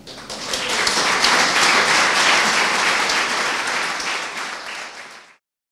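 Audience applauding, building up over the first half second and fading away near the end.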